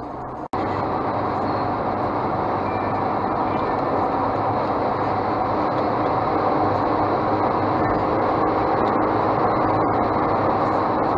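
Steady road and engine noise inside a moving car's cabin at about 100 km/h. A brief dropout about half a second in is followed by a step up to a louder, even rumble.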